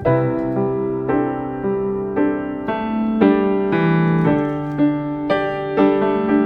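Background music: solo piano playing a slow, gentle melody, notes struck about every half second over sustained low chords.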